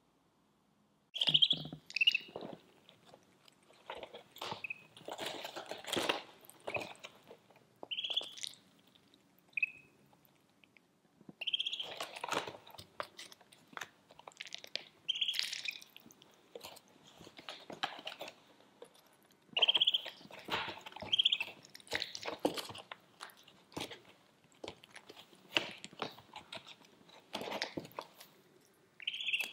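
Ducklings pecking and nibbling dry feed pellets from a plastic cup: rapid clicks and crunches in bursts, with short high duckling peeps now and then.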